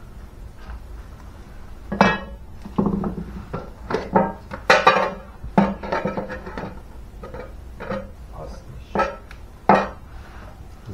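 Metal tools and small engine parts clinking and knocking on a workbench and against a tin can, as a Simson moped engine is taken apart. There are about eight separate sharp clinks, the loudest a little before the middle.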